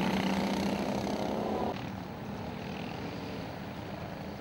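Racing go-kart engines buzzing close by as karts pass, dropping suddenly to a quieter, more distant drone about a second and a half in.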